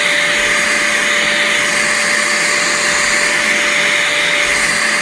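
Dirt Devil Razor Pet bagless upright vacuum running steadily: a constant rush of air with a steady whine from the motor.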